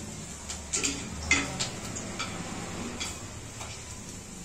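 A few scattered light clicks and taps, about seven in four seconds and the sharpest about a second in, over a low steady hum.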